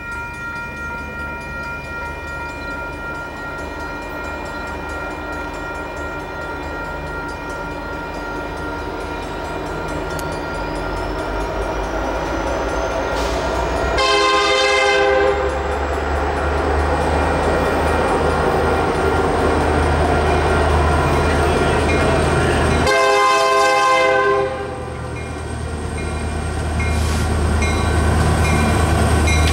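Union Pacific diesel freight train approaching, its low rumble building steadily, with two blasts of the locomotive's air horn about nine seconds apart, each a second or more long.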